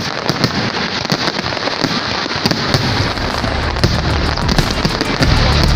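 Fireworks display: a dense, continuous stream of bangs and crackles from bursting aerial shells, with a low rumble building up over the last couple of seconds.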